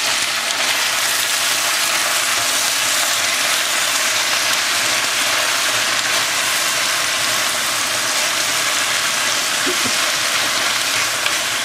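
Broccoli rabe sizzling steadily in hot olive oil and garlic in a frying pan as the greens are turned over.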